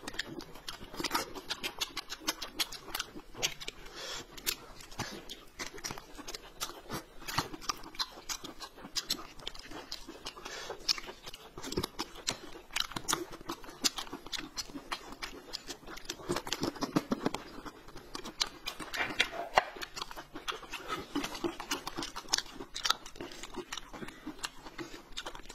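Close-up sounds of people eating thin pancakes rolled around meat: chewing and biting, with many small wet mouth clicks.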